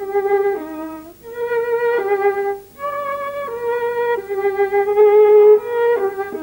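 Ballet music: a violin playing a slow melody in long held notes, with short breaks about a second in and nearly three seconds in.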